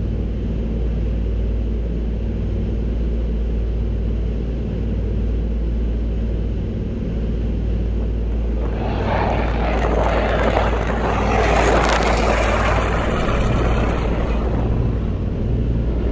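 Avro Anson's twin radial piston engines droning steadily, with a louder rushing noise joining about halfway through.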